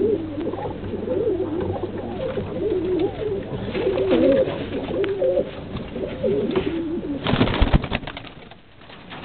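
Egyptian swift pigeons cooing in a small loft, a low warbling coo repeated over and over. About seven seconds in, a brief burst of rustling noise cuts across, then the cooing fades.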